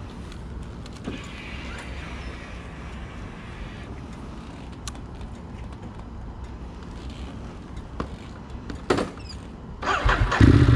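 Ducati Monster 821's V-twin engine idling, heard from the rider's seat as a steady low pulsing rumble. About ten seconds in, a much louder burst of low noise.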